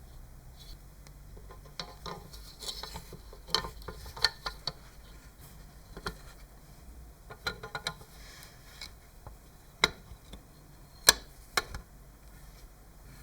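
Irregular light clicks and knocks of hand work with tools and parts, about a dozen with quiet gaps between, the two sharpest near the end.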